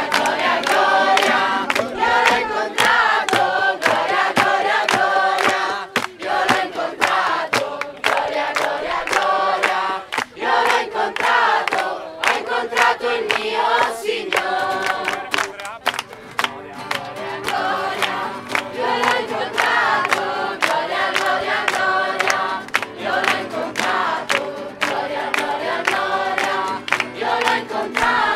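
A crowd of young people singing a song together in chorus, with hand-clapping in time and an acoustic guitar accompanying.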